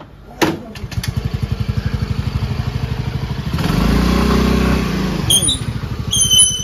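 Yamaha Fascino scooter's single-cylinder engine starting and settling into an even, fast-pulsing idle. About three and a half seconds in, it is briefly revved, then drops back to idle.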